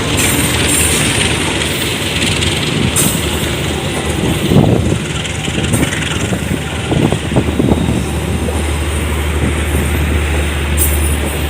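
Diesel locomotive and train running on the track, a noisy rumble with a few heavier knocks around the middle and a steady low engine drone that comes up about eight seconds in.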